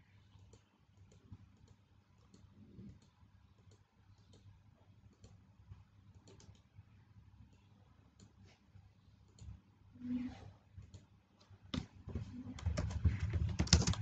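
Faint, scattered computer mouse clicks, then a quick run of keyboard typing over the last two seconds or so.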